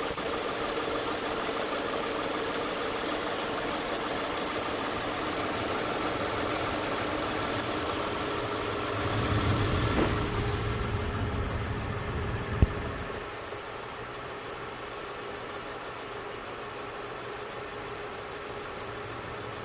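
2007 Saturn Vue engine idling with a cylinder misfire, logged as P0304 along with P0300 and P0302 and traced to a bad number-four fuel injector. A sharp click comes about twelve seconds in, after which the engine sound is quieter.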